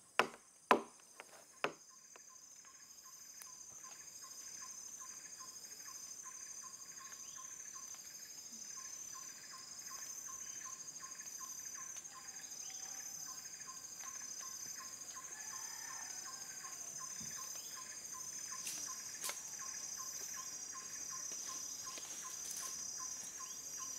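Four or five sharp knocks in the first two seconds, then a faint, steady chorus of tropical forest insects: a high buzz with a quick regular pulse.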